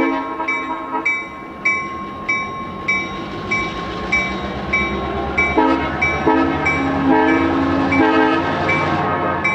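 Locomotive-mounted Nathan M3 three-chime air horn sounding its chord in quick, repeated short blasts, about one and a half a second. The blasts are lighter in the middle and heavier again near the end.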